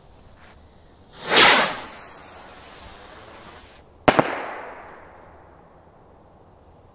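Firework rocket launching with a loud whoosh about a second in, hissing as it climbs, then bursting with one sharp bang about four seconds in, its echo trailing off.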